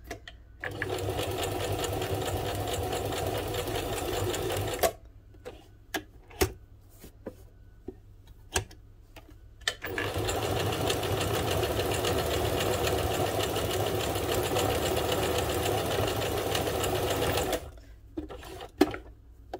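Old mechanical Janome sewing machine sewing a zigzag stitch, running steadily in two stretches of about four and about eight seconds, with a few clicks in the pause between. With its hook timing freshly adjusted, it is forming stitches with no skipped stitches.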